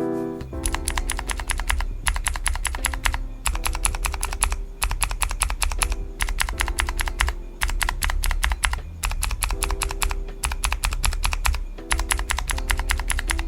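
Mechanical keyboard with Kailh Pro Heavy Sage clicky switches being typed on fast, a dense run of loud clicks broken by short pauses about every one to two seconds. The switches are heavy, about 80 g to press.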